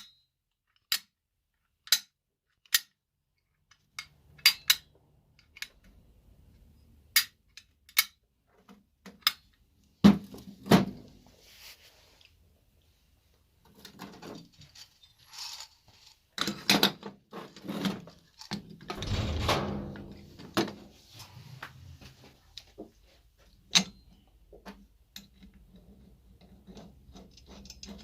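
Metal parts of a Dragon winch clicking and clinking as it is taken apart by hand: sharp single clicks about once a second at first, then a stretch of rattling and scraping a little past halfway, and one more loud click near the end.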